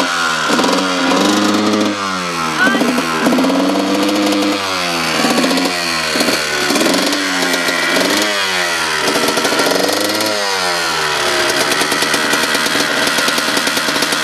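Dirt bike engine being revved by hand on the throttle, its pitch rising and falling in repeated quick revs, then settling to a steady fast run for the last few seconds.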